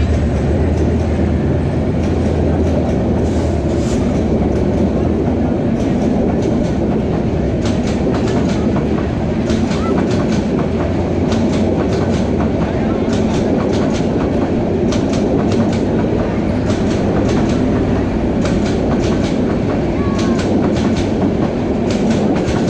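Bangladesh Railway intercity passenger train rolling past close by: steady rumble of the coaches with wheels clacking over rail joints in repeated groups of clicks. A low diesel locomotive drone fades out in the first few seconds.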